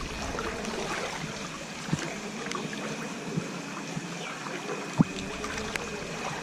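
Floodwater sloshing and splashing around a person wading through it, with a few short sharp taps and knocks, the loudest about five seconds in.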